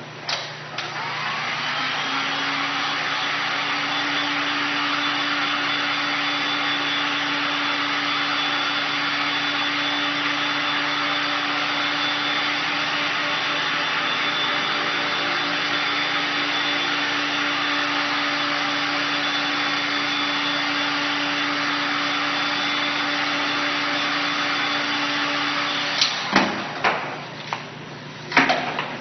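Handheld heat gun blowing hot air over freshly printed silicone on fabric to dry it: it spins up with a short rising whine, runs steadily, then is switched off near the end. A few sharp knocks follow as the wooden screen frame is handled and set down.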